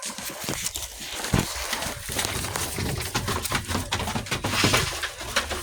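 Scuffing footsteps and rustling as dogs and a person tromp along, a busy run of small clicks and scrapes.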